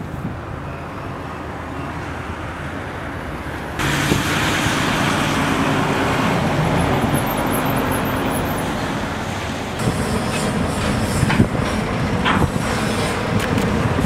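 Steady outdoor rushing of wind and churned water around a newly launched ship. The noise jumps suddenly louder about four seconds in, and a few short knocks come through near the end.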